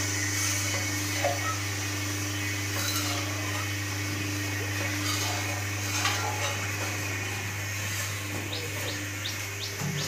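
Steam-heated khoya kadhai running: a steady hum from the motor-driven stirrer over a hiss of steam and frothing, boiling milk. A few short high chirps come near the end.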